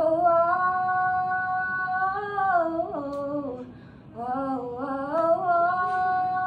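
A young woman singing a cappella in long, held notes that slide between pitches, in two phrases with a breath about four seconds in.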